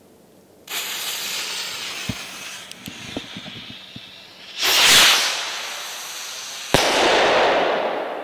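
Firehawk Explorer sky rocket going off: a sudden hiss with a few sharp pops about a second in, a loud rushing whoosh near the middle, then a sharp bang followed by a long fading hiss near the end.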